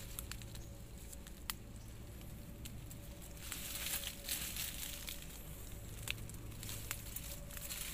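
Dry leaf litter and undergrowth rustling and crackling with scattered light clicks as someone moves and handles things in the brush, over a faint steady tone.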